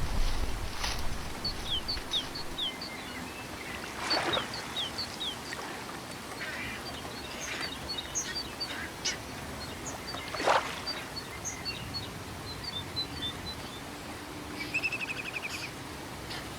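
Wild birds singing at a lagoon edge: series of short, high, falling chirps repeat throughout. Two louder, harsher calls come about four seconds and ten seconds in, and a brief buzzy trill comes near the end.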